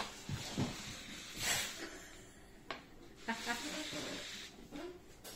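A short breathy puff about one and a half seconds in, then a brief laugh around the middle, with a few soft taps.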